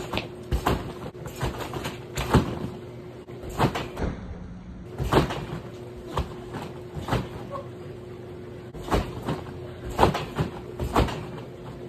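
Repeated thuds of a person bouncing on a backyard trampoline bed, landing every half second to a second, with the hardest landings about two, five and ten seconds in. A faint steady hum runs underneath.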